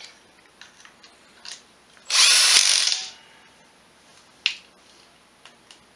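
Cordless power driver running in one burst of about a second, starting about two seconds in, as it drives a bolt of an ATV engine's recoil cover; a few light clicks from the socket on the bolt come before and after it.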